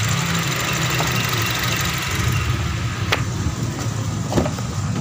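Honda Mobilio engine idling steadily. A hiss above the engine note fades about halfway through, and two sharp clicks come near the end.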